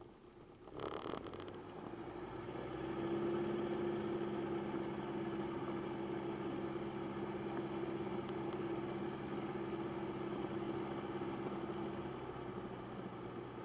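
Piper Cherokee's engine running steadily, a constant drone that comes in after a brief rush of noise about a second in and eases off near the end.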